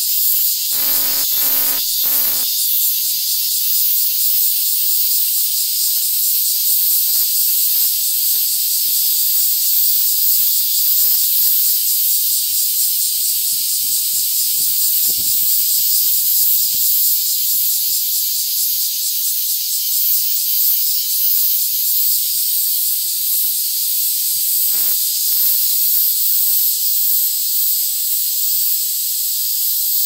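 Mixed summer chorus of Japanese cicadas, black giant cicada, large brown cicada, Kaempfer cicada and Minmin cicada among them, buzzing and droning together in a steady, loud, high-pitched wall of sound with a fine rapid pulse.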